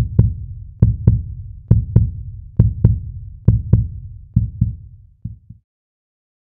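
Logo intro sound: deep bass thumps in pairs, about one pair a second, each with a short click on top, growing fainter and stopping about five and a half seconds in.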